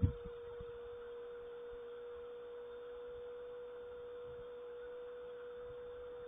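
A steady, faint hum at one unchanging pitch over a soft hiss, with a short low thump right at the start.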